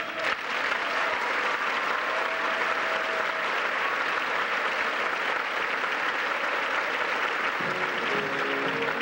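Audience applauding, a dense steady clapping that begins as a held final chord ends. About seven and a half seconds in, music for the next number starts under the applause.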